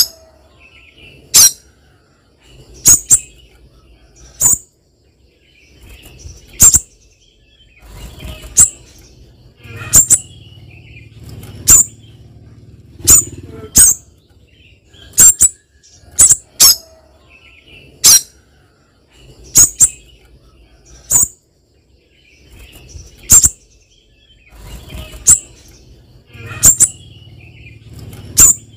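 Spiderhunter (pijantung), a female calling for a male, giving short, sharp, high calls one at a time about every one to two seconds, now and then two in quick succession.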